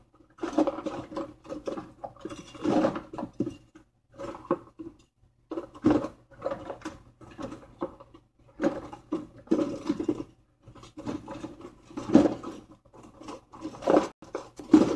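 Close-up eating sounds: irregular chewing and mouth noises near the microphone.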